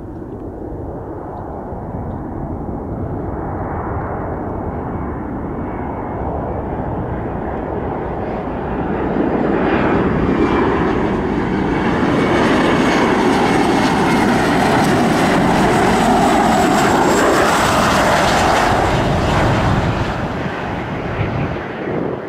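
Boeing 737-400's CFM56-3 turbofan engines on approach to land: jet noise with a high whine over a deep rumble, growing steadily louder as the airliner nears. It is loudest as it passes low overhead, then eases off near the end as it comes over the runway.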